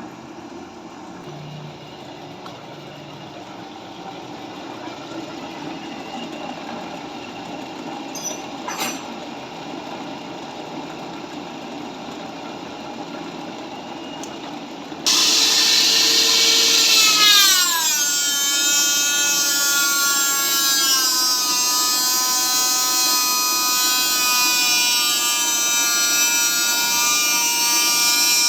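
A steady low machine hum, then about halfway a power grinder starts suddenly and runs loud on the steel of an excavator slewing bearing; its whine drops in pitch a couple of seconds after starting, as it bites into the metal, and then holds steady.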